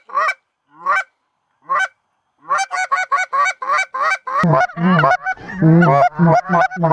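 Hand-held goose call blown in rapid clucks and honks, about five notes a second, to bring in a flock of Canada geese. The calling breaks off shortly after the start for a couple of seconds with two single notes. It resumes, and grows louder and denser near the end.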